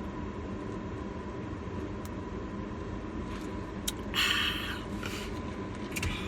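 Eating sounds over a steady low background hum: small mouth clicks, and a short crunchy rustle about four seconds in, as fried chicken strips are bitten and chewed.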